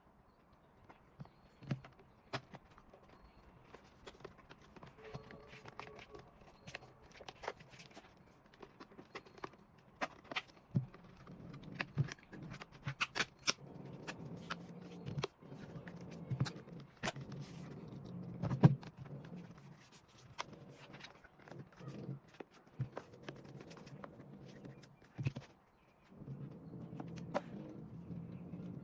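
Irregular small clicks, taps and knocks of hands handling the plastic case of a handheld car diagnostic scan tool during a battery replacement. The sharpest knock comes about two thirds of the way in, over a faint background murmur.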